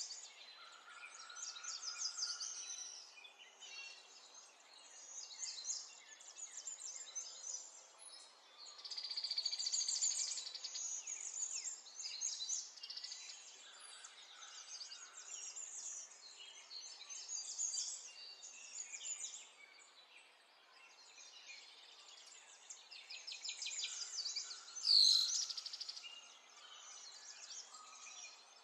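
Small birds chirping and trilling in a steady chorus of quick, stuttering calls. About three-quarters of the way through comes one louder, falling call with a brief bump.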